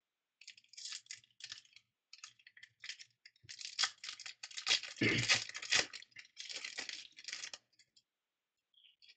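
Trading cards being handled by hand: a run of rustles and flicks as cards slide and knock against each other, loudest about five to six seconds in.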